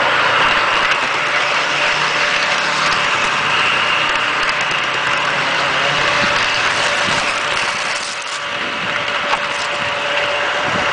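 Garden-scale model train running, its electric motor and gears giving a steady whine over the rattle of wheels on the track, heard close up from a camera riding on the train.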